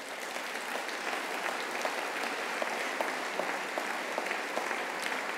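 A large audience applauding steadily: many hands clapping at once.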